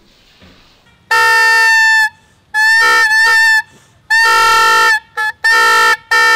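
A Howling Horn toy, a whistle whose aluminium-foil membrane vibrates when blown, set on a long plastic horn, sounding a series of loud honking blasts. It gives about six blasts, each a steady reedy tone lasting under a second, with short gaps between them and one very short blip near the middle.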